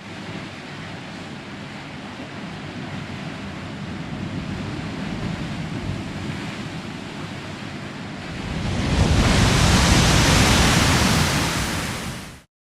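Ocean surf with wind: a steady rush of waves that swells into a louder wave wash about nine seconds in, then cuts off abruptly.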